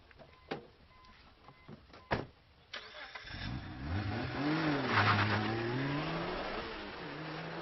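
A car door clicks open about half a second in and slams shut about two seconds in. Then a Mitsubishi Lancer Evolution's turbocharged four-cylinder engine starts and revs up and down as the car pulls away hard, with a hiss of spinning tyres and spray on the wet road, settling to a steady run.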